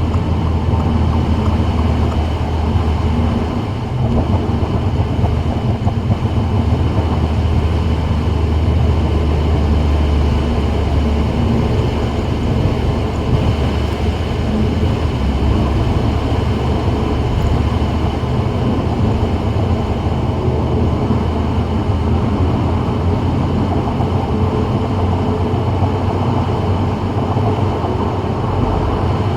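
Steady road noise of a 2024 Subaru WRX at freeway speed on a rain-wet road: tyre hiss over a low, continuous rumble, unbroken throughout.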